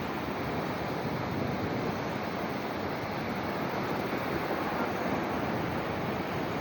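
Sea waves surging and washing in, a steady rushing noise, with some wind on the microphone.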